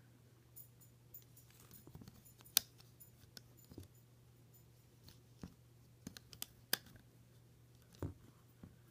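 Rubber bands and plastic loom pegs clicking and snapping irregularly as fingers place bands on a Rainbow Loom, a dozen or so small clicks with the sharpest about two and a half seconds in and near seven seconds, over a low steady hum.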